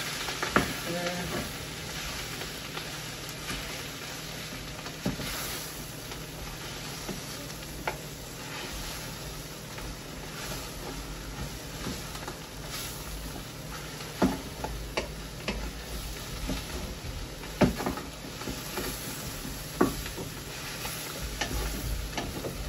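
Chorizo, onions, garlic, potatoes and kale sizzling in the Instant Pot's pot on sauté, stirred with a spoon that knocks and scrapes against the pot now and then.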